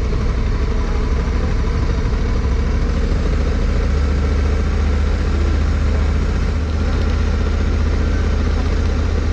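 Honda Africa Twin CRF1100L's parallel-twin engine running steadily at low revs as the motorcycle rolls slowly along.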